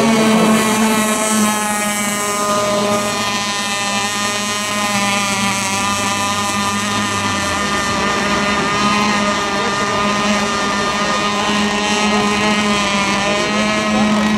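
Radio-controlled racing boats running at speed on the water, their motors giving several overlapping steady tones that waver slightly in pitch. A lower drone drops out about halfway through.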